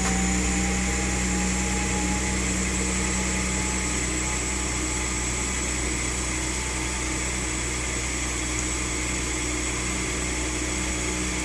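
2013 Ford F-150's 3.5 L EcoBoost twin-turbo V6 idling steadily just after a cold start, with a faint whine that rises in pitch over the first couple of seconds.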